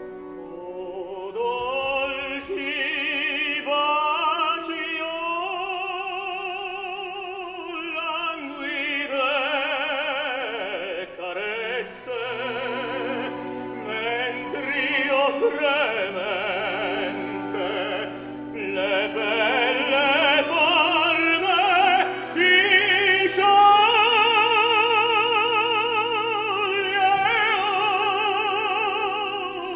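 Operatic tenor singing an aria with a wide vibrato on long held notes, over sustained orchestral accompaniment.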